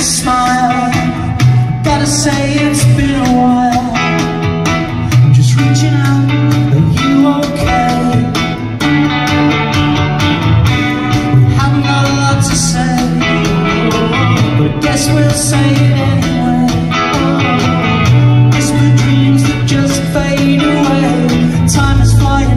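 Live rock band playing loud: electric guitars and drums over a bass line of held low notes that change every second or two.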